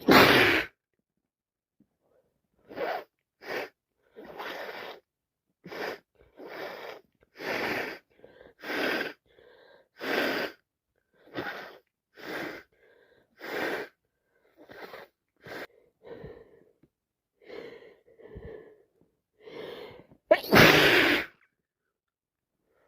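A woman with a heavy head cold sneezing loudly, then a long run of hitching, gasping in-breaths, about one a second, as the next sneeze builds, ending in a second loud sneeze about 20 seconds in.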